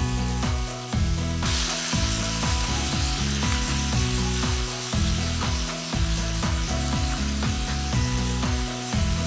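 Food starts sizzling in a hot pan about a second and a half in, a steady frying hiss over background music with a heavy bass beat.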